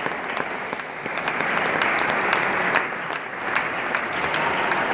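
Spectators applauding a match win, many hands clapping, growing louder about a second in.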